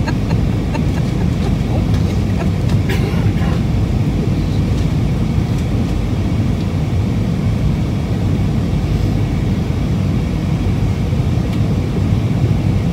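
Steady low roar of an airliner cabin in flight, the engine and airflow noise heard from a window seat, with a couple of faint clicks about three seconds in.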